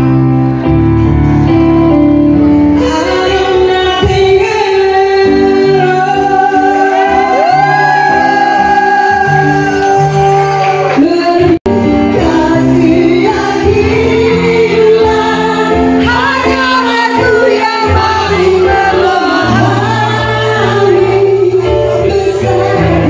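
Women singing into microphones over loud amplified music, the pitch of the voices sliding through the melody. The sound breaks off for an instant about halfway through and comes straight back.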